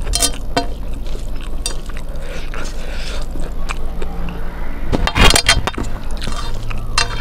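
Close-up eating sounds from rice and dal mixed by hand on a steel plate: wet squishing of the food, fingers clicking against the steel, and mouth sounds as handfuls are eaten, with a louder burst about five seconds in.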